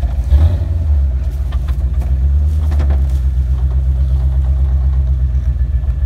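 Land Rover Series engine running steadily at low revs as the truck crawls up over rocks. A thump about half a second in and a few knocks around three seconds in.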